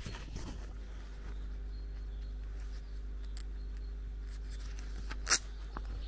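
Footsteps and light rustling of someone walking along a garden path, over a steady low rumble, with faint small clicks and one sharp click about five seconds in.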